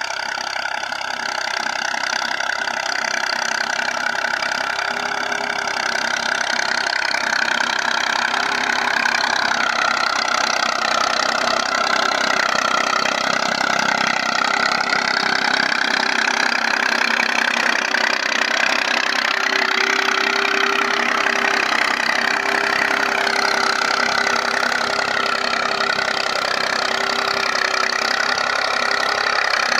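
Massey Ferguson tractor's diesel engine running steadily under load as it pulls an 11-tine cultivator through tilled soil. It grows a little louder over the first several seconds.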